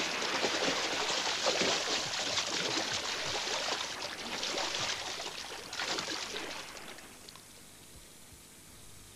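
Water splashing and churning, a dense run of small splashes that dies away about seven seconds in.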